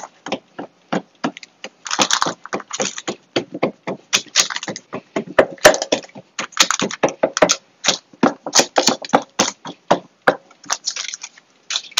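Parchment paper crackling and rustling as hands press a crumb base down into a lined baking pan: irregular crackles coming in quick clusters.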